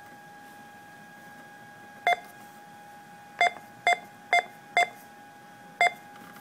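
Key-press beeps from a MERLIN DNC HMI touchscreen terminal as a program filename is keyed in: six short electronic beeps, a single one first, then four about half a second apart for the digits, then one more a second later. A faint steady hum runs underneath.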